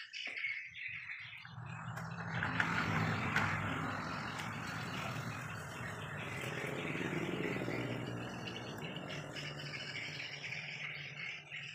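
A motor running steadily, a low hum with hiss, building up over the first two seconds.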